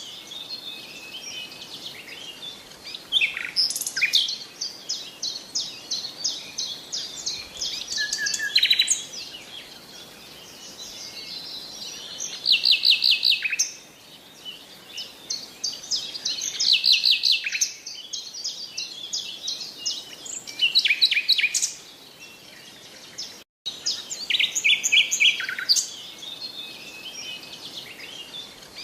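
Songbirds singing: repeated fast trilled and chirping phrases over a light background hiss, with the sound cutting out for an instant about two-thirds of the way through.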